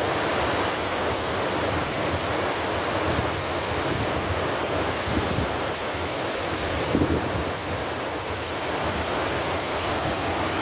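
Ocean surf washing in steadily, with a couple of louder swells, and wind buffeting the microphone.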